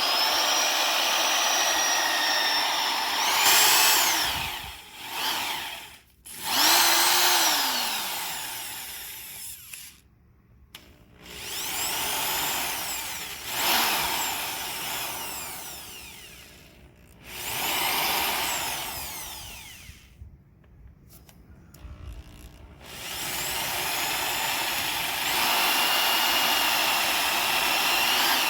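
Electric drill run in repeated bursts of a few seconds each, its motor whine rising as it spins up and falling as it winds down between bursts, while drilling out old leaf spring bushings.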